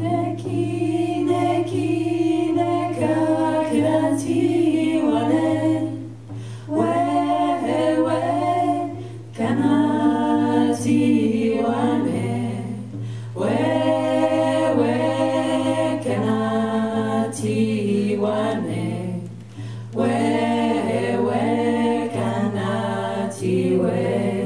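A group of women singing together, indigenous women's ensemble singing, in phrases of a few seconds with short breaths between them, over a steady low hum.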